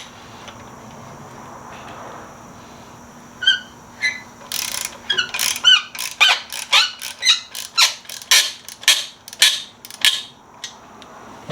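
Hand ratchet clicking in quick, uneven strokes as bolts are worked, starting a few seconds in and running for about seven seconds.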